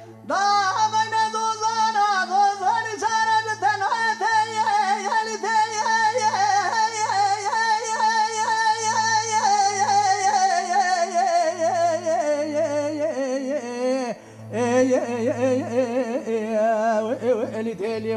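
Male Kurdish dengbêj singer singing into a microphone: long unbroken phrases with wavering, ornamented pitch that sink lower toward the end of a phrase, a brief break about three-quarters through, then a new phrase.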